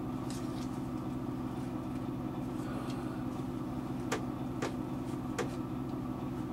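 X-Acto knife cutting through thin light plywood: a few faint scratching strokes, then three sharp clicks in the second half. A steady low hum runs underneath.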